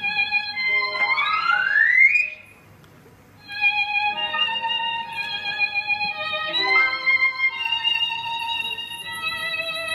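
Violin music playing a slow melody, with one long upward slide about a second in, a short pause, then the melody resumes.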